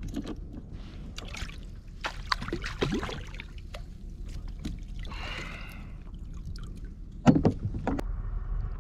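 Clicks and knocks of fishing tackle being handled on a fishing kayak while a small fish is dealt with on the line, with a louder cluster of knocks against the hull about seven seconds in. A steady low rumble of wind and water lies underneath.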